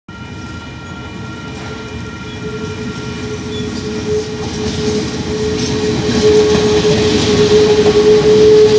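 KiwiRail diesel freight locomotive approaching and passing close by, its engine rumble growing steadily louder, with a steady whine over it.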